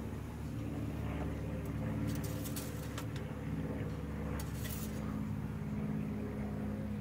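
GMC Yukon engine idling steadily, running to circulate freshly changed oil.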